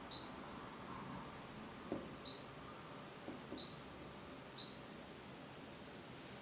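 Control panel of an AEG L9WSR162C washer-dryer beeping: four short high beeps at uneven intervals, as its controls are used to set a programme, with a few soft clicks in between.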